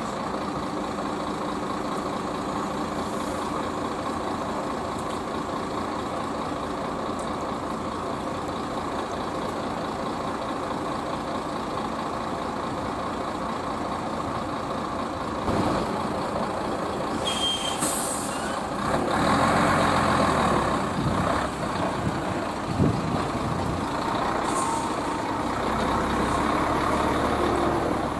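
Heavy diesel trucks idling with a steady hum. About eighteen seconds in, an air brake releases with a short sharp hiss, and the nearest tractor-trailer pulls away, its engine growing louder as it moves off.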